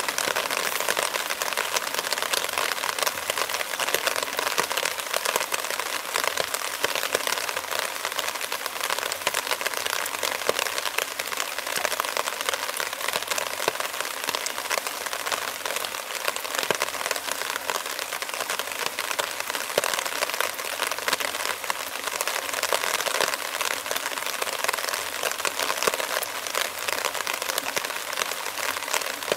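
Torrential rain falling steadily onto standing water: a dense, even hiss of countless small drop splashes.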